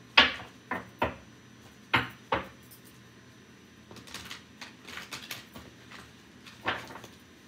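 Hands handling a tarot deck at a table, with stacked metal bangles and rings clinking: a string of sharp clacks, the loudest in the first two and a half seconds and one more near the end, with softer ticks between.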